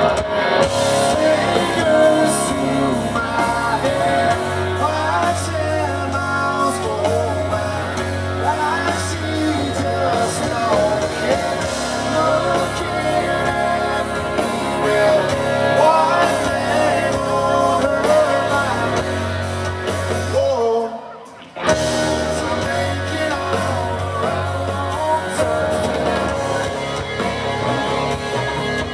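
Live country rock band playing through a concert PA: electric guitars, bass and drums with a male lead singer. The band drops out for about a second roughly 21 seconds in, then comes back in at full level.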